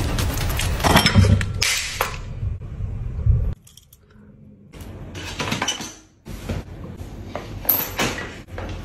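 Clinks and scrapes of a spoon against ceramic dishes as wet cat food is dished out, then, after a cut, the metal lid of a stainless steel pedal bin clattering as a cat climbs in.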